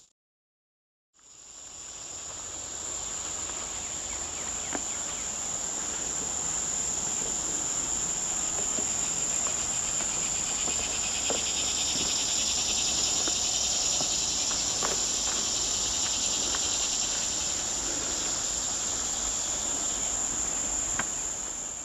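A steady, high-pitched chorus of insects that comes in after about a second of silence and holds, with a few faint clicks scattered through it.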